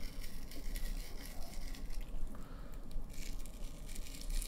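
Wet, squishing sounds of marinated beef and onion pieces being handled and pushed onto a flat metal skewer, with a few light clicks and scrapes.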